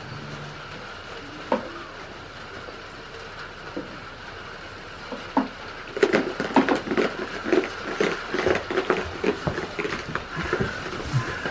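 Goats rustling and crunching in straw bedding close by: a dense run of irregular crackles starting about six seconds in, over a steady faint hiss.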